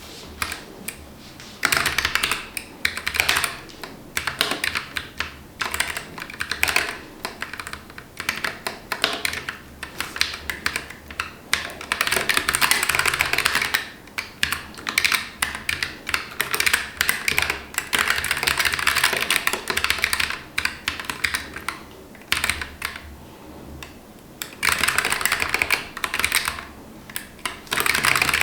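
Typing on a Keychron K11 Pro low-profile mechanical keyboard with Gateron low-profile Red linear switches: quick runs of key clicks lasting a few seconds each, broken by short pauses.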